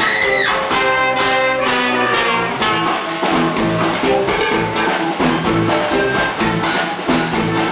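Live band playing music with accordion, electric guitar and drum kit, with a steady beat; a short high note bends downward right at the start.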